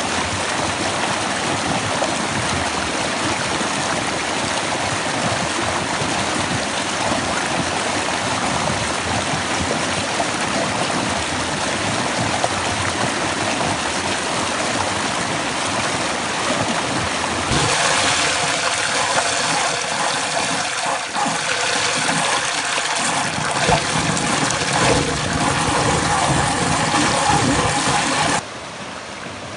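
A rocky mountain stream rushing steadily over boulders in shallow rapids. About two-thirds of the way in it grows louder and hissier as the white water comes close to the microphone. Near the end it drops sharply to a quieter level.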